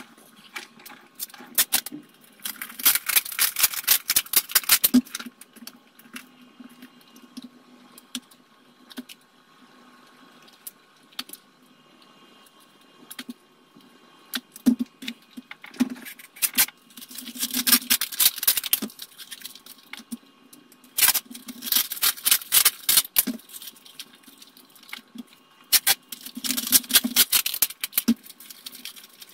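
Sped-up handling noise: plastic cups, lids and paper rustling and clicking in several dense bursts, with quieter stretches between.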